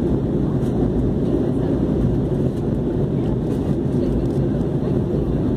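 Airliner cabin noise in flight, heard from inside the cabin: a steady low drone of engines and airflow.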